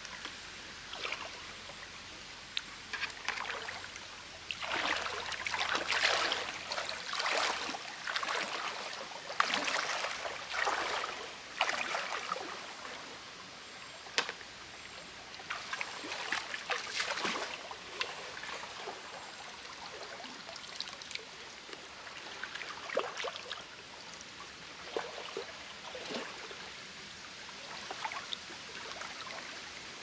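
Shallow creek water splashing and sloshing in irregular bursts as someone wades and scoops with a plastic bucket and dip net, over the steady running of the stream.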